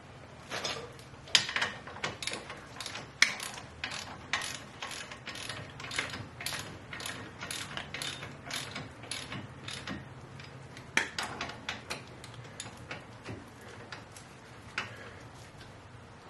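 Hand socket ratchet clicking in steady strokes, about three clicks a second, for the first ten seconds, then a few more after a short pause and a last one near the end.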